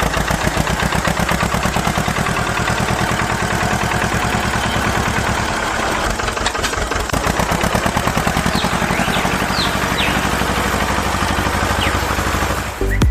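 A small engine running steadily, a fast, even chugging, with a few faint high chirps in the second half.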